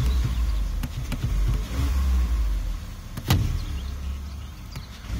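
Car engine revved by the accelerator pedal, its low rumble swelling and dropping back several times. A sharp click comes a little over three seconds in.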